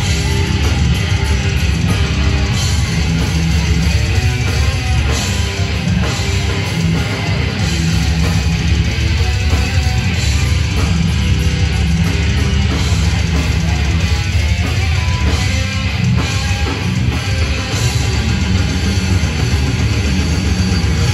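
Death metal band playing live: heavily distorted electric guitars, bass and drums at full volume, with a heavy low end. Recorded from inside the crowd.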